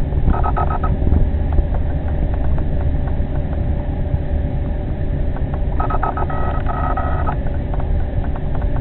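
Fishing reel buzzing and clicking in two short bursts, the second longer, while a big catfish is being played on the line. Under it is a steady low rumble.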